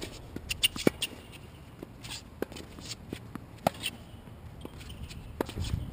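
Tennis rally on a hard court: sharp cracks of rackets striking the ball and ball bounces, the loudest about a second in and again shortly before the forehand near the end, with sneakers shuffling on the court between shots.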